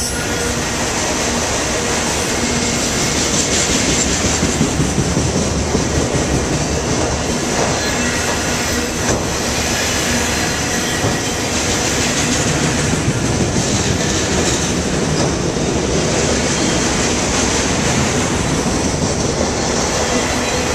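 Union Pacific freight train's autorack cars rolling past close by: a steady, loud noise of steel wheels on the rails, with thin steady high tones of wheel squeal running through it.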